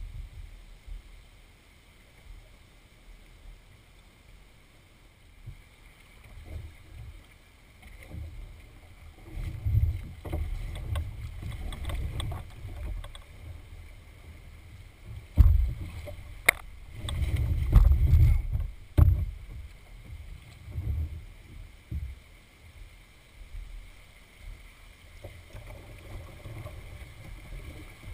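A canoe moving through fast-flowing floodwater: water sloshing and splashing against the hull, with irregular low thumps and a few sharp knocks, busiest in the middle.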